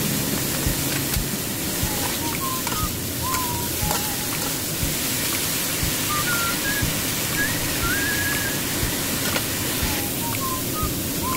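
Broccoli sizzling in oil in a stainless steel pot, a steady hiss, while a metal spatula stirs it with irregular knocks and scrapes against the pot. A few faint short high-pitched notes come and go over the hiss.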